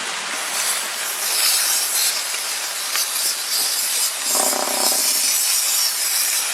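Aerosol healing spray hissing onto an elephant's wounds in surges, with a brief pitched sound about four and a half seconds in.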